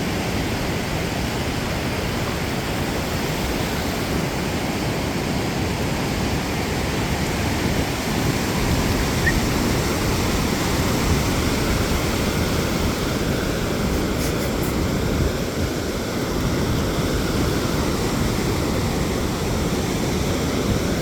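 Ocean surf rushing steadily onto the beach, an even noise with no break, growing a little louder about eight seconds in.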